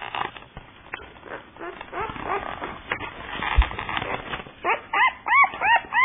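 Nine-day-old Australian Shepherd puppy whimpering: faint high cries at first, then a run of louder short squeaks that rise and fall, about two or three a second, over some rustling.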